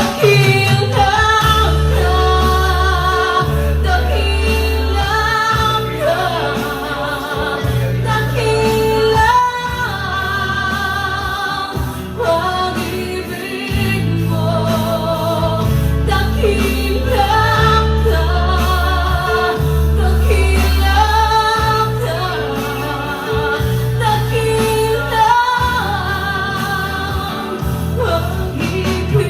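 Gospel worship song: a woman singing over a band with a steady bass.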